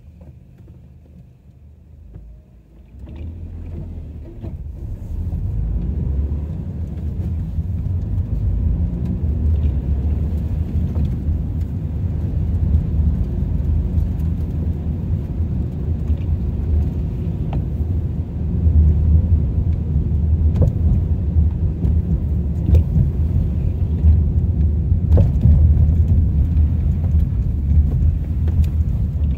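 Car driving noise heard from inside the cabin: a low rumble of tyres and engine that swells over the first few seconds as the car gets moving, then holds steady with occasional faint clicks.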